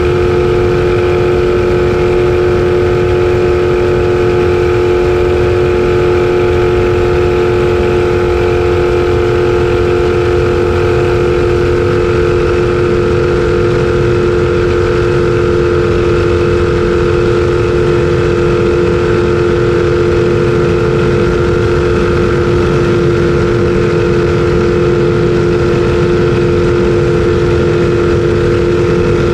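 Race jet boat's engine running hard at a steady pitch, heard from the cockpit as the boat runs at speed, with a rushing noise underneath.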